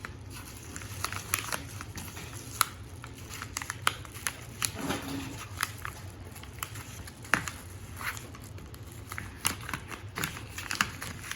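Plastic packaging crinkling and rustling as it is handled and opened, with scattered sharp clicks throughout.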